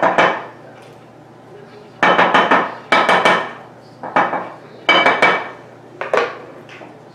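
A spoon knocking and scraping against a mixing bowl while thick beer bread batter is stirred, in repeated clusters of quick clinks about once a second.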